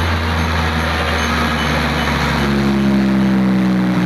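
Large outdoor DJ sound-box system with 10 bass and 12 mid cabinets playing loud, bass-heavy music: sustained deep bass notes that step to a new pitch about two and a half seconds in.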